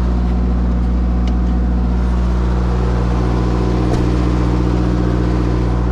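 An engine idling steadily nearby, a constant low drone, with a single light click about four seconds in.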